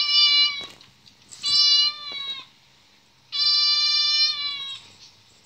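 Recorded cat meows played through a tablet's speaker: long, level, high-pitched cries that start and stop abruptly. One cry ends about half a second in, a shorter one comes around two seconds, and a longer one runs from about three and a half to nearly five seconds.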